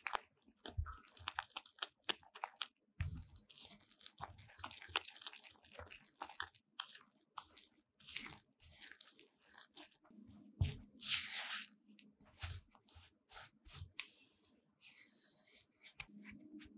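Spatula stirring flour in a glass mixing bowl: irregular crunching and scraping strokes as the flour is worked into a shaggy dough, with a few longer scrapes against the bowl near the middle and toward the end.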